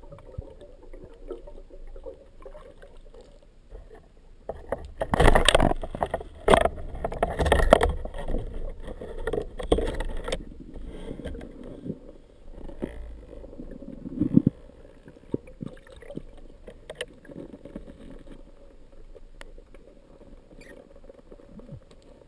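Muffled underwater sound of water moving around a camera housing as a free diver swims. A run of loud rushes and knocks comes about five to ten seconds in, with scattered smaller knocks after.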